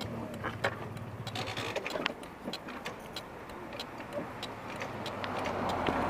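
Honda Elite scooter's small engine running at low speed, a steady low hum with scattered light clicks and ticks over it.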